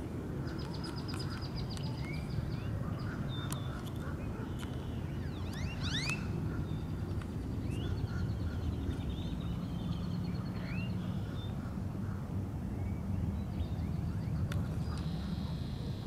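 A steady low rumble with many birds calling over it: high trills, short rising whistles, and a quick run of steep rising calls about six seconds in.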